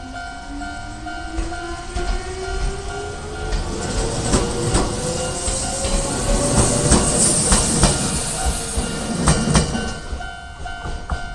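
Level crossing's old-style standard warning bell ringing in steady pulses as an electric train passes. The train gives a whine that rises in pitch over the first six seconds, and its wheels clack over rail joints, loudest just past the middle. The bell comes through clearly again near the end as the train clears.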